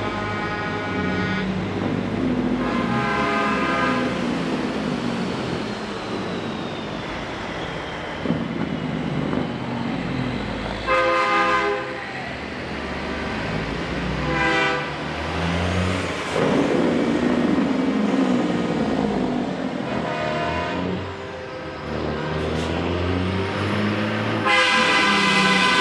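Semi trucks' air horns blowing, about six separate blasts a few seconds apart, the last one the longest and loudest near the end, over the steady rumble of big diesel rigs rolling past.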